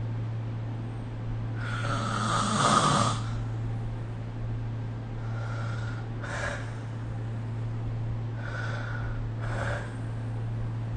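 A sleeping person snoring, recorded on a phone. One long, loud snore comes about two seconds in, followed by quieter snoring breaths in pairs around six seconds and again near nine to ten seconds, over a steady low hum.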